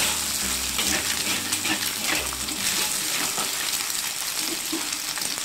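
Stir-frying in a wok: egg and sausage sizzling while a spatula scrapes and taps against the pan as the food is turned over.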